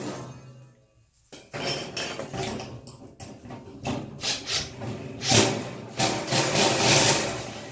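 Cold-rolled steel plate with bolts fitted being shifted and pressed against a rough wall: irregular scraping and knocking of sheet metal, after a brief quiet spell about a second in, loudest in the second half.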